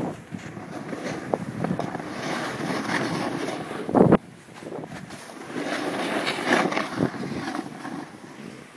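Snowboard sliding over snow: a rough scraping hiss that swells and fades, mixed with wind noise on the microphone, and one brief louder scrape about four seconds in.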